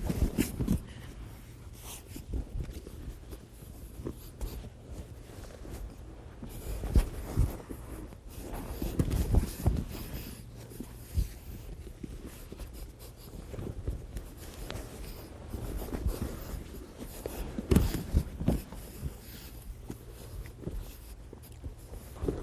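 Grapplers drilling an omoplata and its escape on mats: gi cloth rustling and bodies shuffling, with irregular dull thumps as they roll and land on the mat.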